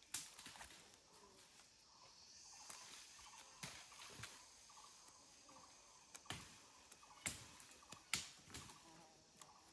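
Faint snaps and rustles of feathers being plucked by hand from a small dead bird, about half a dozen sharp ones spread through, over a faint hum of insects.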